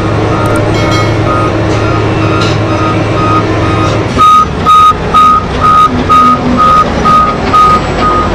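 Reversing alarm of a BelAZ-75710 mining dump truck beeping steadily, a bit over two beeps a second, as the truck backs up, over the low drone of its diesel engines. The beeps become much louder about four seconds in.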